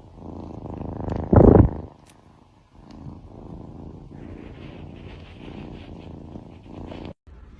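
A cat purring, a steady low rumble, with a brief louder sound about a second and a half in; the purring cuts off abruptly near the end.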